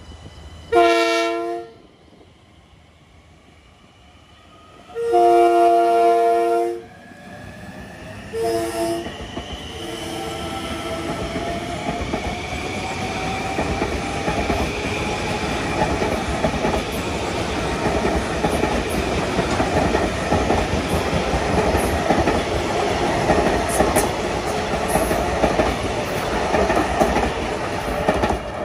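Long Island Rail Road train sounding its horn: a short blast, a long blast, then two short ones. The train then passes with a rising rumble and wheels clacking over the rail joints, staying loud until it fades near the end.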